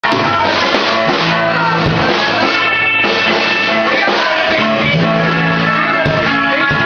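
Rock band playing a Britpop-style song live, with guitar and drums at a steady, loud level.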